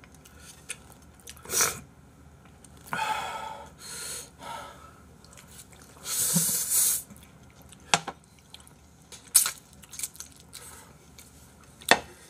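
A person eating jjapagetti, slurping the noodles and chewing, with the longest and loudest slurp about six seconds in. A few sharp clicks come later.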